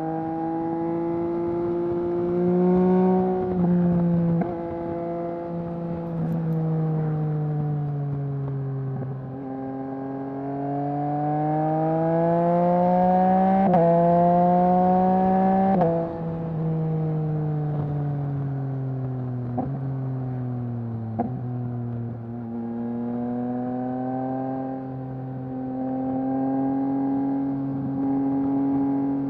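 2021 Yamaha MT-09's three-cylinder engine breathing through a Mivv full-system exhaust while riding. The engine note climbs and falls with the throttle, with sudden pitch steps at the gear changes. There are a couple of sharp cracks about twenty seconds in.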